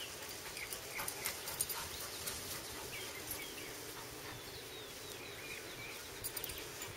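Dogs moving about on grass, with scattered light clicks and rustles, over faint short high chirps.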